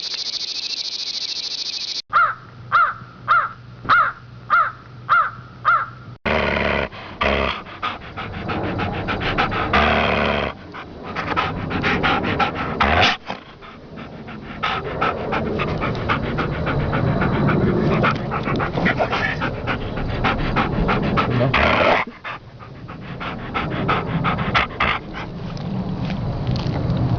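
Crickets chirping for about two seconds, then dog sound effects: about eight evenly spaced barks, two a second, followed by a long, dense stretch of barking and other dog noises.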